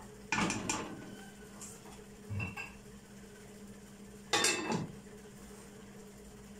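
A silicone spatula knocking twice against a cooking pot, then a duller knock, then a pot lid set down on a stone-coated pot with a short clatter about four and a half seconds in, the loudest sound. A steady low hum lies underneath.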